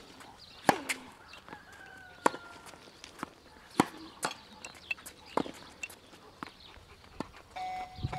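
Tennis rally on a hard court: sharp knocks of racket strikes and ball bounces, roughly every second and a half. A steady beeping tone comes in near the end.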